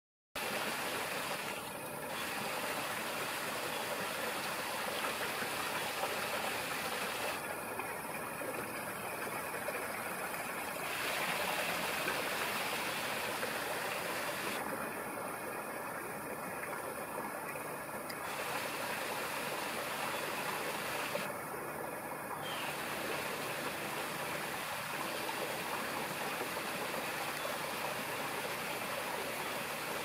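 Steady rushing outdoor background noise with no distinct events.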